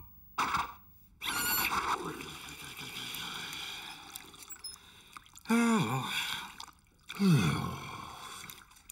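Cartoon bath sound effects: sloshing bathwater and scrubbing. Two falling vocal sighs, about five and a half and seven seconds in, are the loudest sounds.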